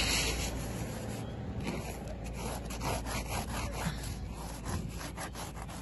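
A hand scraping frost off a frozen motorcycle seat, in a run of short, quick rasping strokes starting about a second and a half in.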